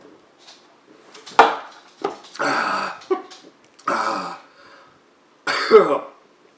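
A man coughing and clearing his throat in three rough bursts after gulping down a small bottle of hot jalapeno vodka, the burn of the drink catching his throat. A sharp sudden sound comes about a second and a half in.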